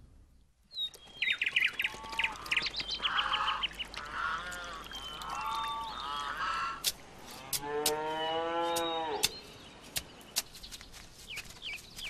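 Farmyard animal sound effects: a run of short goose honks and duck quacks, then one long cow moo that lasts nearly two seconds, about seven and a half seconds in, followed by scattered short clicks.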